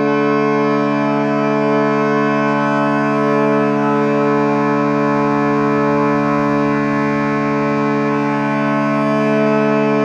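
Ambient meditation music tuned to 432 Hz: a sustained drone chord of many steady tones, held without any beat or change.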